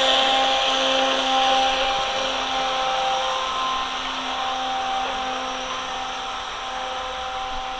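Small RC jet boat's electric motor and water-jet pump running with a steady whine, growing gradually quieter as the boat heads away up the brook, over the rushing of the shallow stream.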